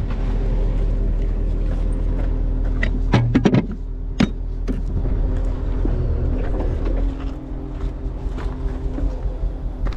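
Duramax diesel tow truck idling with a steady low hum, with chains clanking against a metal toolbox about three to four seconds in. The idle grows quieter after about seven seconds, leaving light footsteps on gravel.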